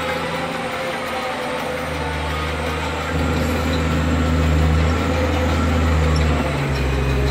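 Diesel engine of a wheel loader heard from inside its cab, running steadily. It grows louder about three seconds in, and its note shifts slightly near the end.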